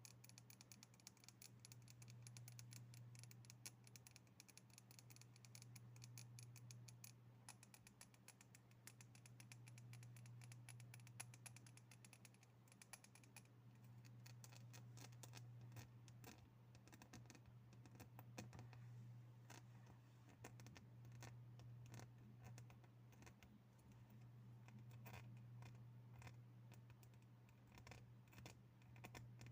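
Quiet, rapid tapping and light scratching on objects, a dense run of small clicks that thins out a little after about thirteen seconds, over a steady low hum.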